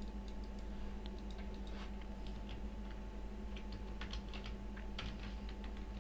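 Computer keyboard being typed on: irregular, soft key clicks at an uneven pace, over a steady low hum.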